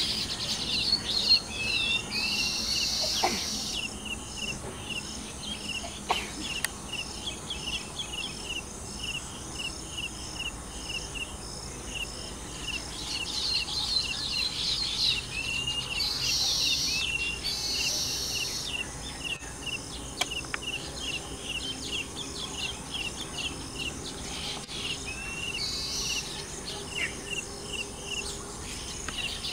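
A colony of baya weavers chattering: a long run of short chirps about three a second, broken several times by the males' wheezy, buzzing song.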